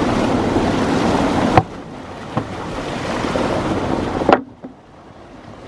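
Steady rushing of water flowing through a cranberry-bed flood bulkhead, with wind on the microphone. The rush drops abruptly in level about a second and a half in and again just after four seconds, each time with a short knock.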